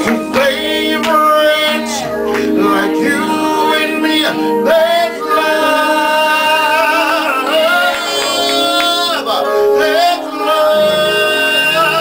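Worship song: voices singing long, wavering held notes over sustained instrumental accompaniment.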